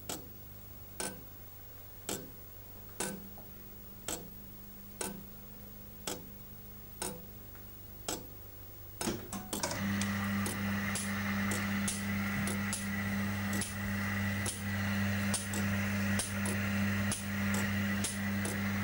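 Mechanical tower clock ticking steadily, about once a second. About nine seconds in, a louder steady machine hum comes in, with faster clicking from the clock's gears and chains running.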